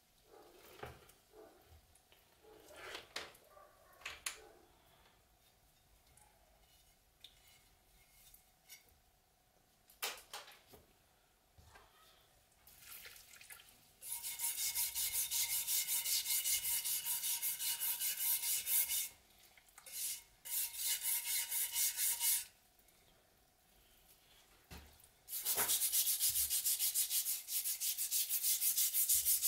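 Gloved hands scrubbing the wet, rusty steel blade of a machete with rapid back-and-forth strokes, stripping the black rust loosened by an electrolysis bath. It starts about halfway through after some quiet wet handling and small splashes, breaks off for a couple of seconds, and then starts again.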